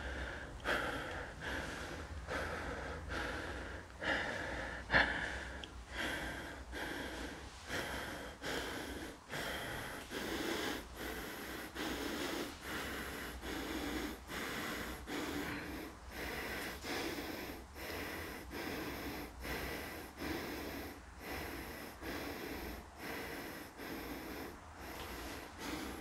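Rhythmic sobbing breaths: a crying voice that catches and gasps about one and a half times a second, with one louder sob about five seconds in. The uploader presents it as the crying of a woman's ghost.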